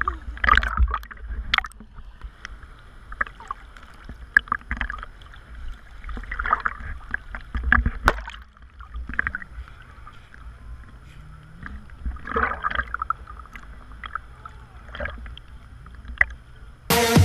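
Small sea waves sloshing and splashing around a waterproof camera held at the water's surface, in uneven washes over a low muffled rumble. Electronic music starts abruptly near the end.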